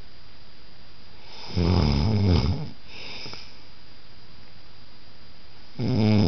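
A sleeping person snoring: two snores about four seconds apart, one about a second and a half in and the next starting near the end, over a steady background hiss.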